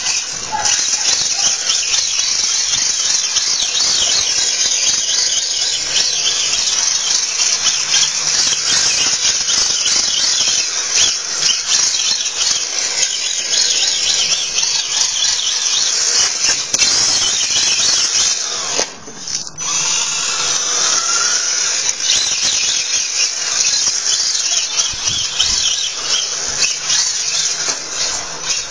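Radio-controlled TA01 drift car's electric motor and gear drive whining at high pitch, the whine gliding up and down as the throttle is worked, over the hiss of the small tyres sliding on rough tarmac. The sound drops out briefly about two-thirds of the way through.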